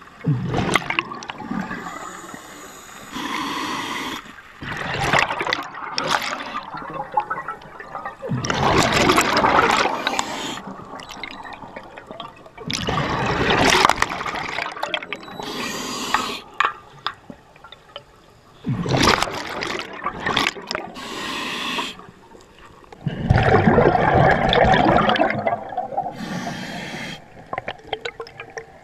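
Scuba diver's regulator breathing, heard underwater: a hiss on the inhale, then a burst of exhaust bubbles, repeating every four to five seconds.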